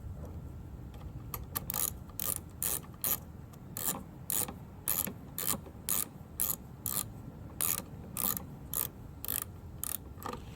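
Ratchet wrench tightening a bolt: about twenty quick back-and-forth strokes, roughly two a second, each a short burst of pawl clicks, stopping just before the end.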